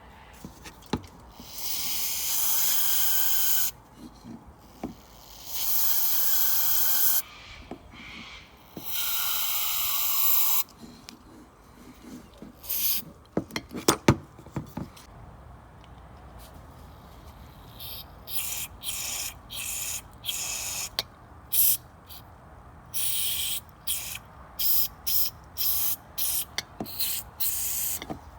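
Aerosol spray hissing into the passages of a Briggs & Stratton carburetor to clean it out: three long sprays of a second or two each, then a run of short quick bursts near the end. A few small knocks of the carburetor parts being handled come between them.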